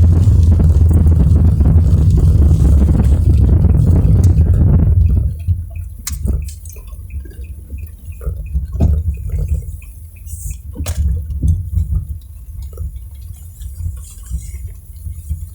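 Road and engine rumble of a car driving in the rain, heard from inside, dropping away about five seconds in as the car slows to a stop. After that come scattered ticks and drips of raindrops on the car's body and windscreen.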